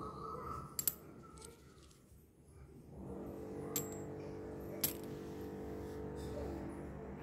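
Old Indian coins clicking against one another as they are picked up and handled: a quick double click about a second in, then two single clicks a little past the middle, with background music underneath.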